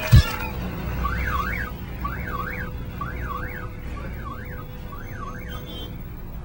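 A heavy thud, then a car alarm sounding in short bursts of fast up-and-down warbling, about one burst a second.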